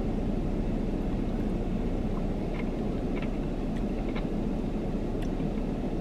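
Steady low rumble inside a parked car that is running, with a few faint clicks of a plastic spoon against the ice-cream cup between about two and four seconds in.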